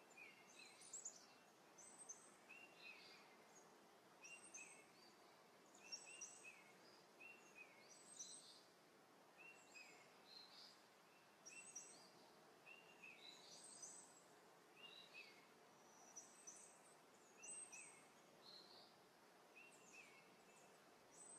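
A small songbird singing faintly, repeating a short, high chirping phrase about once a second, over quiet outdoor background hiss.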